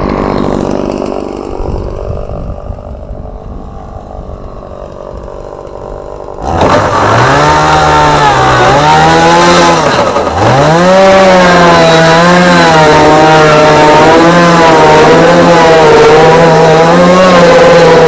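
Chainsaw running, throttled up suddenly about six seconds in and held at high speed, its pitch sagging twice under load as it cuts into a fiberglass boat hull.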